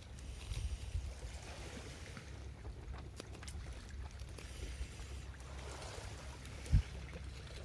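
Outdoor ambience of wind rumbling on the microphone, with faint scattered taps and one dull thump near the end.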